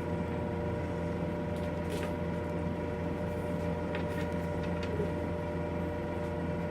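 Steady machine hum made of several constant tones, with a few faint clicks from the leather straps and buckles of a horse bridle being handled as the cheek pieces are fastened on.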